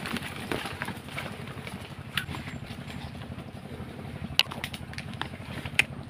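Footsteps through dry leaf litter with three sharp twig-like snaps, over a steady low rumble.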